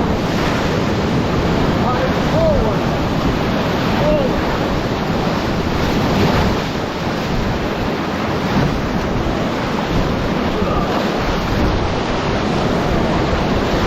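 Whitewater rapids on the Kern River rushing loudly and steadily around a raft, with wind buffeting the microphone.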